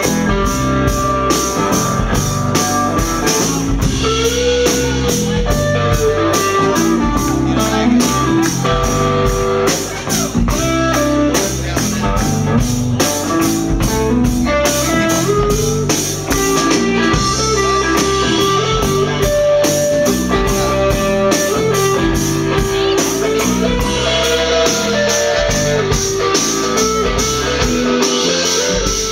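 Live soul band playing an instrumental passage: electric guitar over a drum kit and bass with a steady beat.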